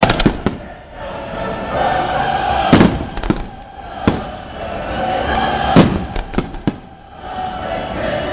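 Aerial firework shells bursting in a display: a run of sharp bangs and crackling, in clusters at the start, about three seconds in and again around six seconds, over background music.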